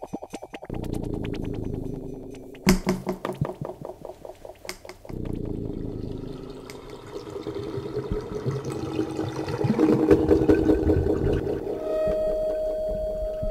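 Electronic ambient music: a fast pulse breaks off into rushing, water-like swells, with a steady high tone entering near the end.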